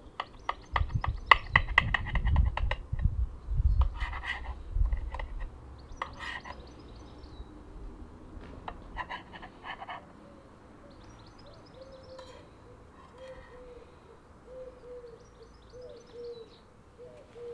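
Knife cutting through a frittata, clicking and scraping against the plate in quick bursts with some low bumps, mostly in the first five seconds and again briefly around nine seconds. Small birds chirp now and then, and a pigeon coos low and repeatedly through the second half.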